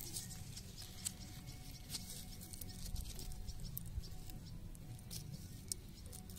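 Cotton plant leaves rustling close to the microphone: irregular light clicks and crackles over a low, steady rumble.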